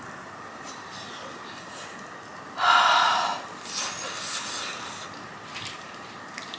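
A loud, short rush of breath from a person, about a second long, near the middle, followed by a few softer breathy puffs.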